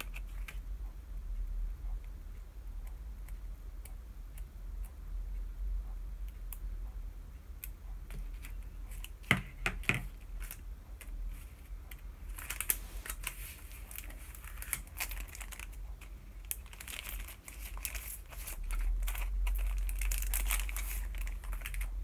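Small craft scissors snipping vellum paper, then a couple of knocks about ten seconds in. From about halfway on, plastic sticker packets and papers crinkle and rustle as they are sorted through by hand, getting louder toward the end.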